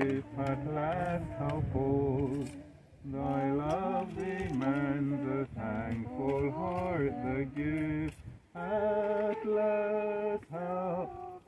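A man singing alone without accompaniment, in phrases of long, wavering held notes with short breaths between them.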